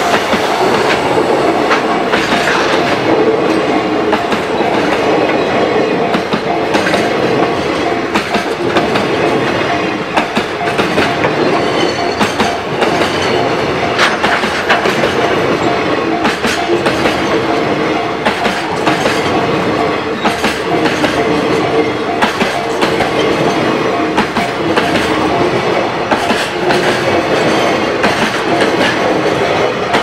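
Loaded JR Freight container wagons rolling past close by, a steady, loud rumble of wheels on rail with a continuous clatter of knocks as the wheels pass over rail joints.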